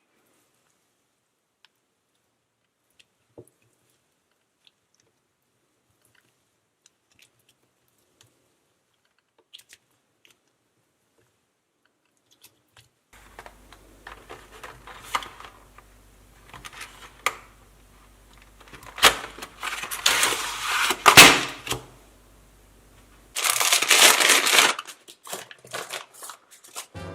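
Dried clay being cracked and crumbled by hand: irregular crunching and crackling that begins about halfway through after near silence, with the loudest crunches a little later and a dense gritty crumbling burst near the end.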